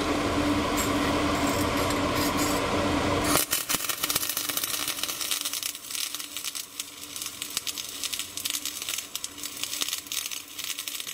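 A steady hum for about three seconds, then a flux-core wire-feed welding arc strikes and crackles steadily as a vertical-up root pass is run on steel plate over ceramic backing.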